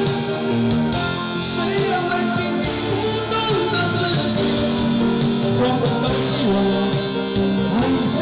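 Background music: a rock song with singing, guitar and drums.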